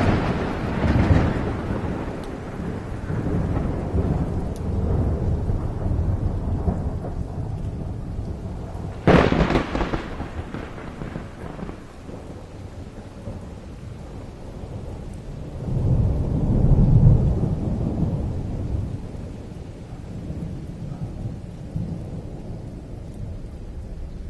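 Thunderstorm: a sharp thunderclap at the start rolls into long low rumbling, a second crack comes about nine seconds in, and a deep rumble swells and fades again around seventeen seconds, over steady rain.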